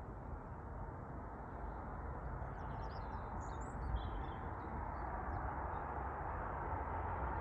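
Distant Airbus A330 Voyager twin-engine jet on final approach, a low rushing hum with a faint steady whine that grows gradually louder. A bird chirps several times about halfway through.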